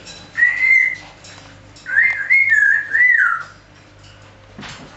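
African grey parrot whistling: a short whistle, then a longer warbling whistle that wavers up and down in pitch.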